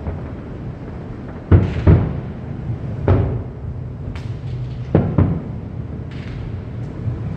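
Fireworks shells bursting overhead: a string of sharp booms, two close together about a second and a half in, then single booms and another close pair, each ringing out briefly.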